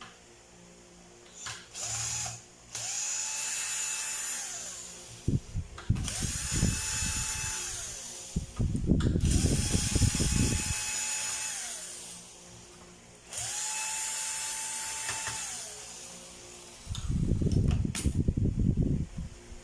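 Small cordless electric screwdriver run four times for about two seconds each, its motor whine rising, holding steady and winding down each time, with handling knocks in between as screws come out of the TV.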